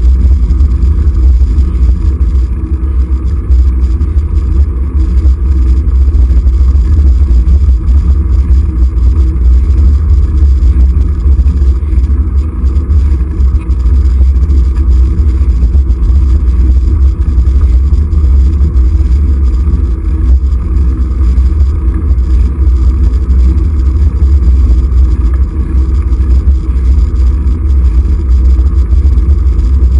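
Steady, loud low rumble of wind and road noise on a vehicle-mounted camera's microphone while riding along a road.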